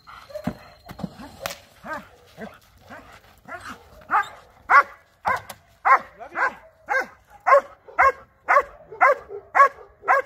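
Black German Shepherd barking at a decoy hidden in a blind, a bark-and-hold in protection training. The barks are soft and scattered at first and become loud and steady, about two a second, from about four seconds in.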